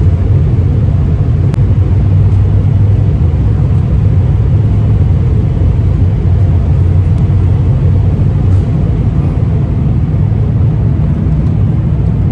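Airliner cabin noise during the takeoff roll: a loud, steady low rumble of the jet engines at takeoff thrust with the aircraft rolling down the runway.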